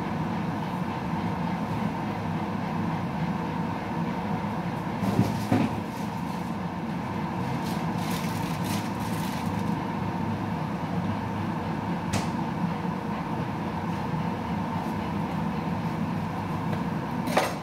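Steady rushing noise with a faint hum under it, broken by a few short clicks or knocks about five, eight to nine, twelve and seventeen seconds in.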